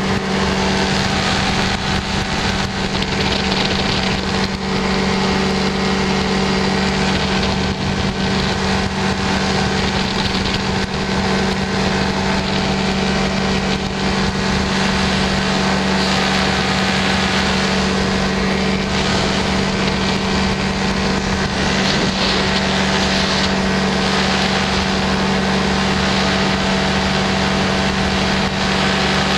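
Small aircraft's engine droning at a steady pitch in level flight, with wind rushing past the microphone.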